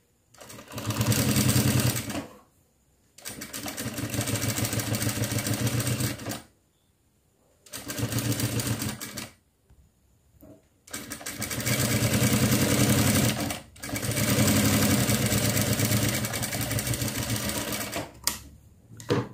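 Industrial single-needle lockstitch sewing machine running in five stop-and-start bursts of fast stitching, a few seconds each with short pauses between, as the facing is sewn around a frock's neckline. A short snip or two near the end as the thread is trimmed.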